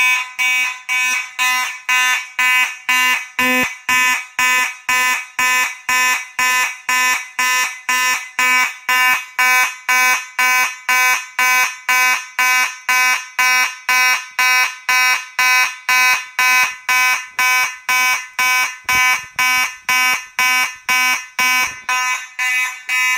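Fire alarm horn sounding in drill mode from a Fire-Lite MS-9600LS control panel, pulsing evenly about twice a second with a harsh, buzzy tone. It stops near the end.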